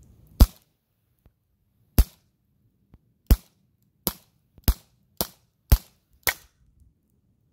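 Gammo P25 CO2 air pistol firing eight sharp shots, the first two about a second and a half apart, then six in quick succession. The gun is going off, but on most shots the pellet will not leave the barrel.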